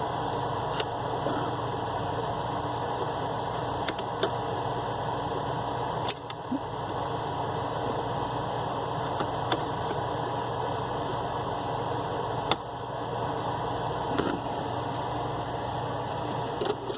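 Small DC-motor-driven mini lathe running steadily while turning aluminium stock, with a few scattered light ticks. It winds down near the end.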